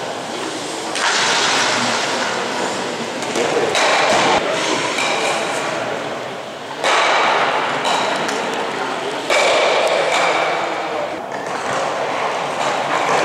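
Stock-sport stocks thrown along an indoor summer court: each lands with a thud and slides away with a long rushing scrape. This happens several times, a few seconds apart.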